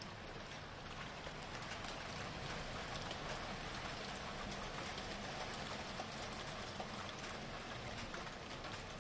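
Steady rain falling, with many small drops ticking on nearby surfaces.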